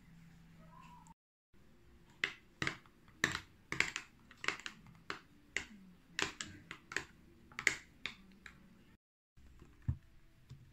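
Irregular sharp clinks, about two a second, of a utensil knocking against a glass mason jar of strawberry milk. Near the end comes a single low thump as a laptop lid is opened.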